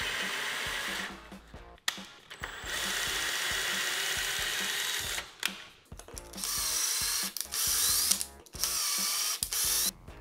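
Cordless drill turning a tap slowly to cut threads into an ABS plastic bracket, run in about four bursts of one to two and a half seconds with short pauses between.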